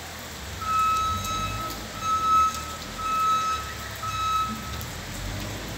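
Vehicle reversing alarm beeping four times, about once a second, on one steady high tone, with rain hissing underneath.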